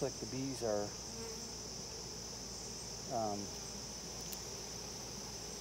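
Steady high-pitched chirring of insects, with honey bees buzzing close by in short passes in the first second and again about three seconds in, as a frame of bees is worked out of an open hive.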